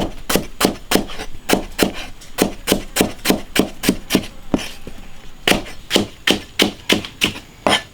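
Kitchen knife chopping young ginger on a cutting board: a steady run of sharp strikes, about three a second, with a short lull a little past halfway.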